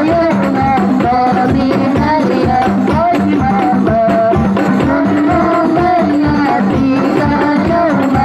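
Sholawat, an Islamic devotional song, sung into a microphone over hand-beaten rebana (hadrah) frame drums keeping a steady rhythm.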